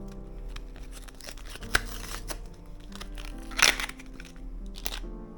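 Plastic blister packaging of a RAM module being handled and opened: crinkling, a sharp click about two seconds in, and a louder crackle around three and a half seconds, over steady background music.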